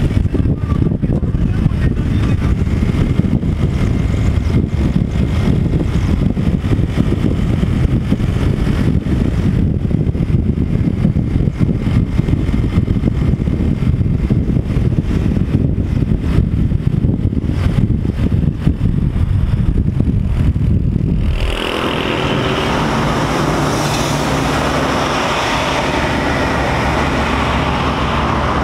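Road and wind noise from a car driving at highway speed, a heavy rough rumble. About 21 seconds in it changes suddenly to a smoother, less bassy traffic noise with a faint steady low hum.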